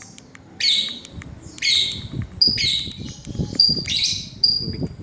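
Lovebird chirping, a rapid series of shrill "cit cuit" calls in repeated bursts, about one or two a second, some ending in a short high whistle.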